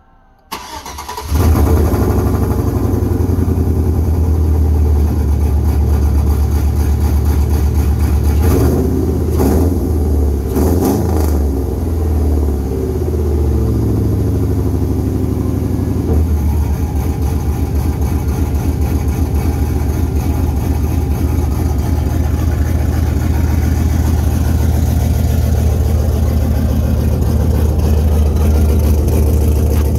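Pickup truck engine with long-tube headers and a full exhaust cold-starting: it cranks and catches about a second in. It is revved briefly a few times around nine to eleven seconds in, then settles into a loud, steady idle.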